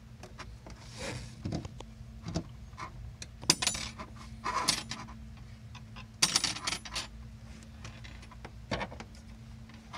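Hands handling a bungee cord and twine close to the microphone: scattered rustles, scrapes and small clicks, with a few louder rustling bursts, over a faint steady hum.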